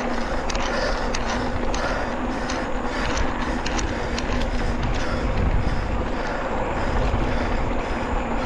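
Mountain bike running downhill on a dirt trail: tyres rumbling over dirt and stones, with a quick, irregular rattle of small clicks from the chain and frame. Wind buffets the microphone with a low rumble that swells and fades.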